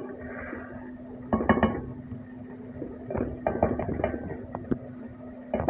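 Wooden spatula stirring thick cooked mash daal in an aluminium pot, knocking and scraping against the pot in a short flurry about a second and a half in and again for about two seconds from the three-second mark, over a steady low hum.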